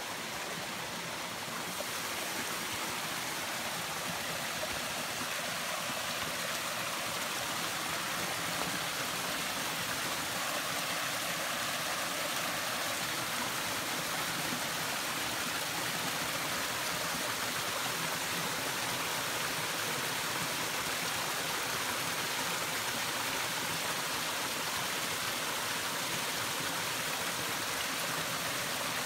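Small woodland stream spilling over mossy rocks in little cascades into a shallow pool: a steady, even splashing rush of water.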